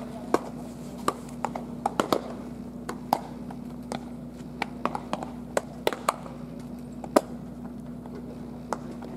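Baseballs smacking into leather gloves during catch play: sharp, irregular pops, sometimes two or three in quick succession, over a steady low hum.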